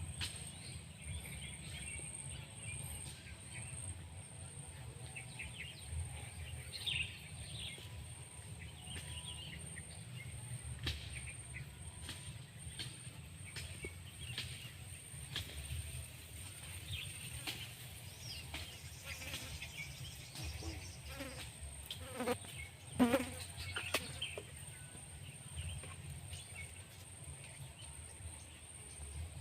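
Outdoor swamp ambience: a steady high-pitched insect drone runs throughout, with scattered bird chirps and a low rumble. Occasional clicks and knocks come through, the loudest a little past the middle.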